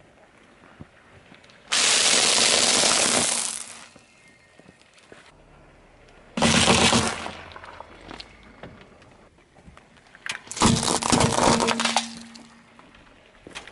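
A car tyre rolling over and crushing things in turn, three separate bursts of crunching and cracking: a stack of wafer sheets crunching for nearly two seconds, a tray of eggs cracking briefly, then a plastic tube of small beads breaking.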